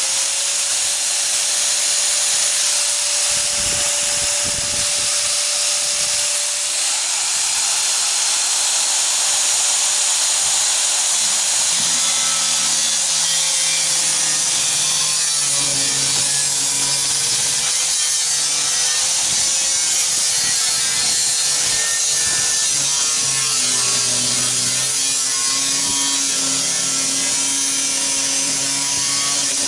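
A power tool running continuously while cutting the sheet steel of an 18-litre square tin can: a steady, harsh hiss over a motor hum that wavers slightly in pitch.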